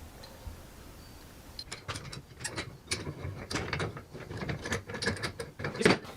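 Hand tools working on metal sawmill parts: a run of irregular metallic clicks and knocks that begins about a second and a half in, the loudest knock near the end.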